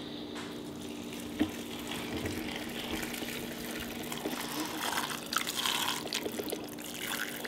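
Just-boiled water poured in a steady stream from a plastic kettle into a metal pot, splashing onto an upturned ceramic plate and filling the pot around it.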